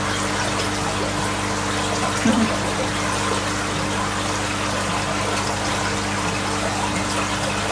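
Water running and splashing steadily into a koi fry tank, with the steady hum of its pump underneath. A brief low bump about two seconds in.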